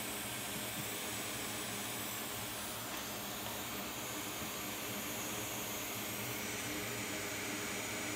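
Steady hiss of rushing air from a hot air rework station blowing over the logic board, with a faint low hum under it.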